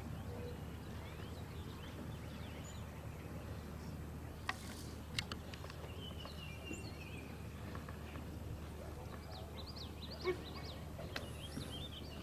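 Open-air ambience: a steady low rumble, with bird chirps about six seconds in and again near the end. A few short sharp clicks come through, the loudest about ten seconds in.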